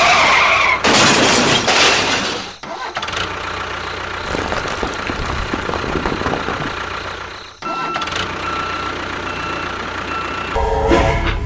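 Motor of a DIY mini tractor-bulldozer running, in several clips that cut off suddenly about 1, 2.5 and 7.5 seconds in, with a thin steady whine over the running for a couple of seconds near the end.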